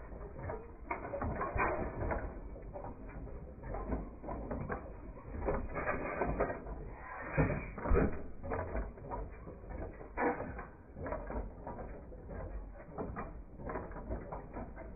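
Antique machinery running with a busy, irregular mechanical clatter of clicks and knocks.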